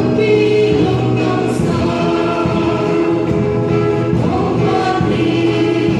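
Two women singing a gospel song into microphones, accompanied by an acoustic guitar; the voices hold long notes.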